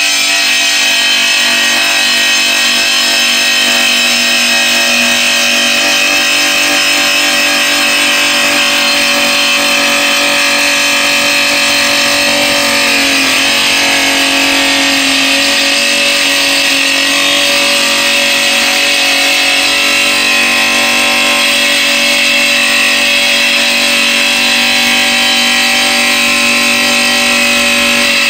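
Raimondi Jollyna tile saw running steadily, its motor-driven blade grinding a 46° bevel along a ceramic tile strip with a high, even whine. The pitch sags briefly about halfway through, then recovers.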